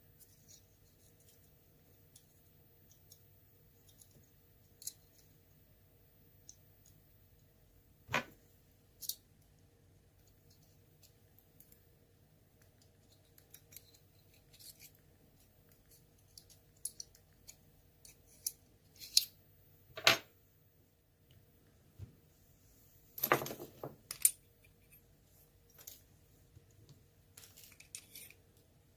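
ASSA Twin lock cylinder being taken apart by hand: scattered light metallic clicks and taps of tools and small lock parts, with a few sharper clicks and a short clatter in the second half.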